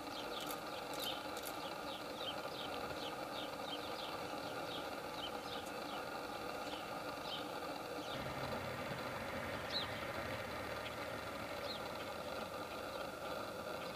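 A steady mechanical hum, like a motor running, under a quick run of short, high, falling bird chirps that repeat two or three times a second. The chirps stop about eight seconds in, when a deeper hum joins, and then only one or two single chirps follow.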